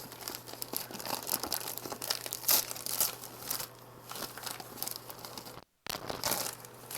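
Packing paper being crumpled, rustled and torn by hand in irregular crackles. The sound cuts out completely for a split second shortly before the end.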